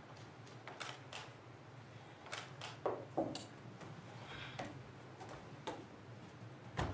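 Irregular knocks and taps of a wooden stick and bare feet on a wooden stage floor, about ten in all, the loudest two around three seconds in and another just before the end, over a faint steady hum.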